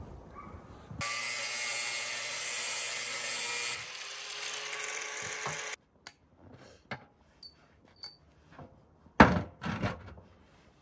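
A small motor runs steadily for about five seconds, dropping in level partway through, then stops abruptly. Scattered light knocks follow, with two louder thuds near the end.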